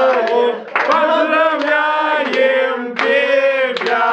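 A group of young men and women singing loudly together in long held notes, clapping their hands in time.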